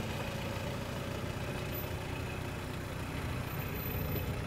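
Old Toyota Land Cruiser 4x4's engine idling steadily.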